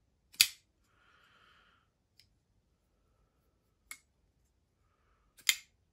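Medford Slim Midi folding knife clicking as its blade is worked open and shut to test the detent: a sharp click about half a second in, a fainter one near four seconds and another sharp one near the end. Its owner finds the detent still extremely light.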